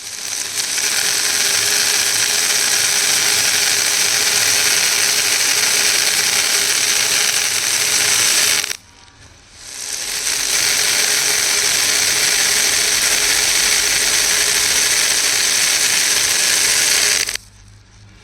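A dense, continuous clatter of many small beads rattling and clicking together, loud and steady. It stops abruptly twice: briefly about halfway through and again near the end.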